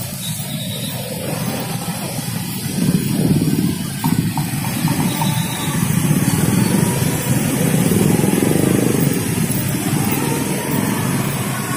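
Motorcycle engines running in dense, slow-moving traffic, heard from among the bikes as a steady, loud rumble that swells a little past the middle.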